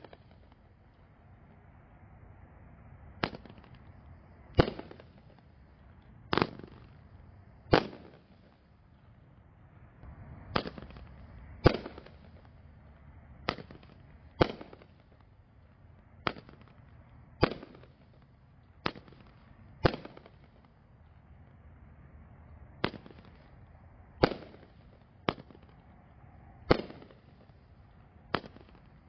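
A 500-gram 12-shot fireworks cake firing shot after shot: sharp bangs in pairs, a smaller launch thump followed about a second later by a louder break high up, every two to three seconds.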